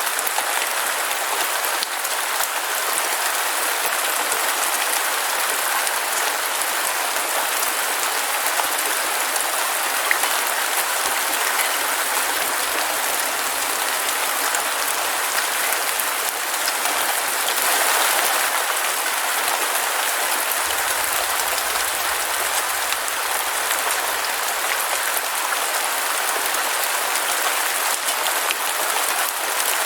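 Heavy rain falling steadily, a dense even hiss that swells slightly a little past the middle.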